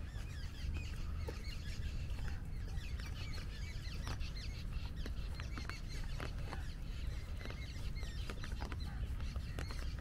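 A flock of parrots and other birds calling at once, a steady chatter of short squawks and chirps, with scattered taps of rain on an umbrella over a steady low rumble.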